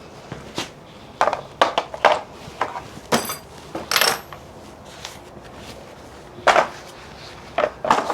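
Hand tools and metal parts clinking and knocking against each other in short, irregular clusters during motorcycle rear-wheel work.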